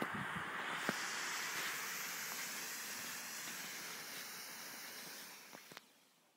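DM-11 smoke pot burning with a steady hiss as it jets out smoke. The hiss sinks and fades out in the last second or so.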